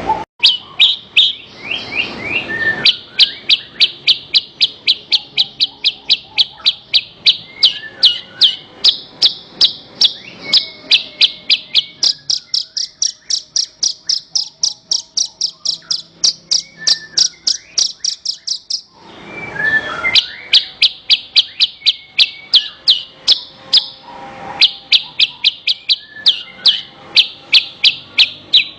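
Javan bush lark (branjangan) singing a long, fast series of repeated high chirps, about four a second, with a brief break about two-thirds of the way through before the chirping resumes.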